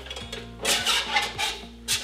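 Background music with steady low bass notes and sharp percussive hits.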